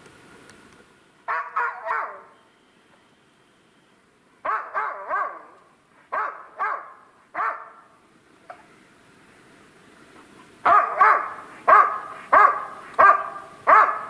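A laika dog barking: three groups of three barks with pauses between them, then a run of about six barks near the end.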